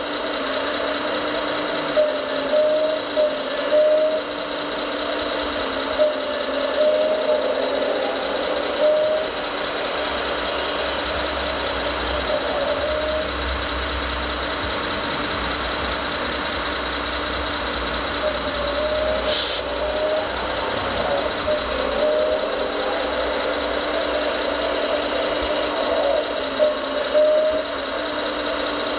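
Hydraulic pump of a radio-controlled Komatsu excavator whining steadily with a high tone, its pitch wavering as the boom and bucket are worked, with a few short louder bumps.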